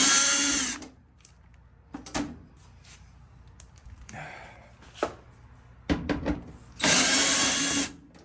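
Power drill spinning out the screws of a dryer's control-panel plate in two short runs of about a second, one right at the start and one about seven seconds in, each with a motor whine. Between them come a few sharp clicks of handling screws and metal.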